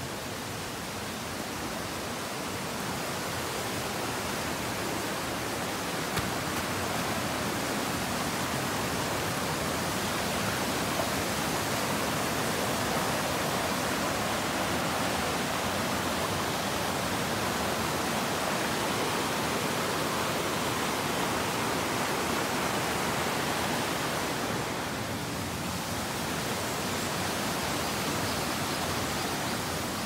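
Steady rush of water in a rocky mountain stream, growing louder in the first several seconds and briefly dipping about five seconds before the end.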